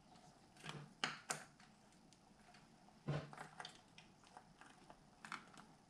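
Faint, scattered metallic clicks and clinks of the cam chain and cam gear being worked loose by hand in a Honda CB550's open cylinder head, with a sharper knock about three seconds in.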